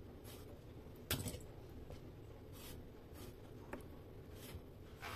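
Kitchen knife cutting into raw chicken wings on a wooden cutting board: faint, irregular short cuts and taps of the blade on the board, the loudest about a second in.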